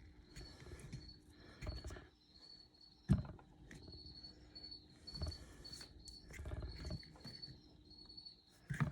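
Metal caliper parts being handled while brake pistons are pressed into a Girling caliper: scattered taps and scrapes, with one sharp knock about three seconds in. Crickets chirp steadily in the background.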